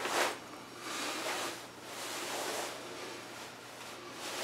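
Faint rustling of a heavy winter jacket's fabric as the arms move, coming in a few soft swells.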